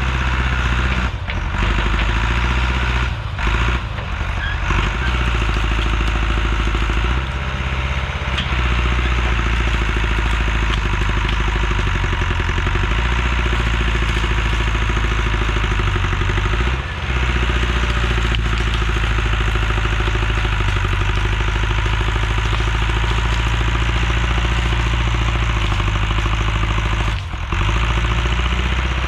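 Engine of heavy land-clearing equipment running steadily, with brief dips in level a few times.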